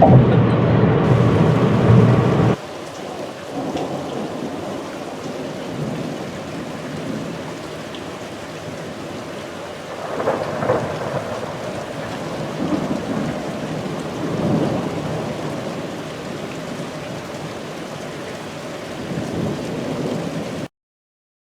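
Steady rain with several rolls of thunder, the strongest about ten seconds in. It follows a louder sound that cuts off abruptly about two and a half seconds in, and the rain stops suddenly near the end.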